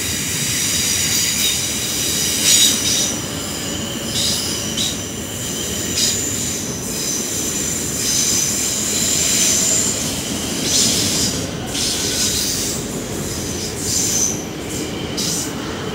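South Western Railway Class 450 Desiro electric multiple unit pulling out and rolling past at close range: a steady rumble of wheels on rail, with high-pitched whining tones above it and a few sharp clicks.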